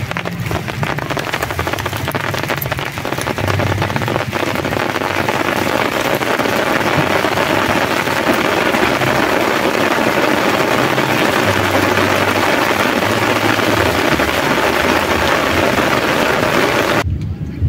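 Rain falling hard, with wind, as a steady rushing hiss that swells after the first few seconds and cuts off suddenly near the end.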